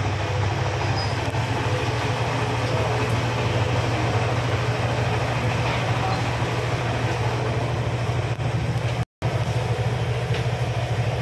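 Horizontal feed mixer on a test run: its electric motor drives the mixing shaft through a gearbox, giving a steady low hum with an even mechanical whir over it. The sound cuts out for a moment about nine seconds in.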